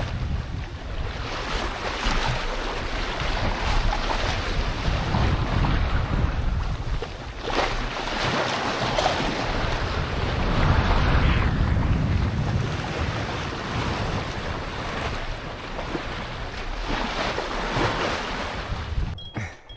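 Wind buffeting the microphone over the rush of sea waves around a sailboat under sail, swelling and easing in gusts.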